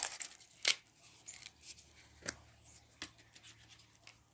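A few faint, sharp clicks and scratches, spaced a second or so apart, from a salt container being handled.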